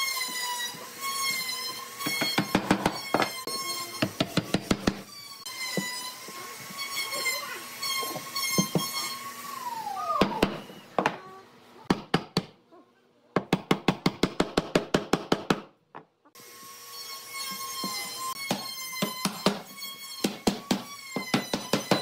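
Rapid runs of hammer blows on wood, several strokes a second, driving pine tenons home into their mortises as a frame is assembled. A steady, high, wavering tone runs beneath much of it.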